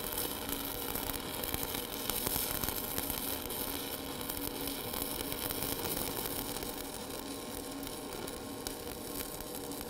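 Shielded metal arc (stick) welding with a 1/8-inch 7018 electrode, the arc burning as a fill pass is dragged slowly along a plate groove: a steady, even crackle with no breaks.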